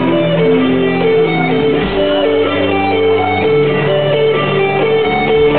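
Rock band playing, with guitar to the fore over a moving bass line.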